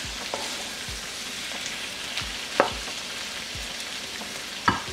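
Mutton cubes and sliced onions sizzling in ghee in a wok, stirred with a wooden spatula that clicks against the pan a few times, most sharply about halfway through and near the end.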